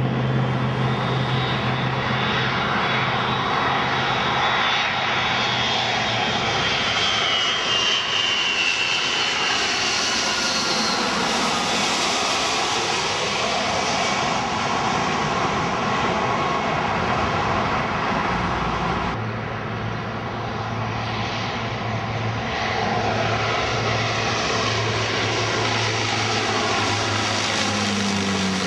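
Twin-engine jet airliners on final approach passing low overhead, their engines running with a high whine that falls in pitch as the aircraft goes by. About two-thirds through, the sound cuts abruptly to the engine noise of another landing aircraft.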